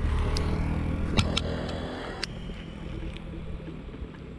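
A motor vehicle's engine running as it passes on the road, loudest in the first two seconds and then fading away. Two sharp clicks are heard, about a second and two seconds in.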